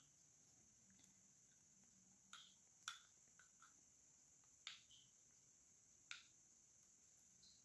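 Near silence, broken by a handful of faint, short clicks of a small metal spoon touching a bowl of melted white chocolate as a cookie is dipped and lifted out.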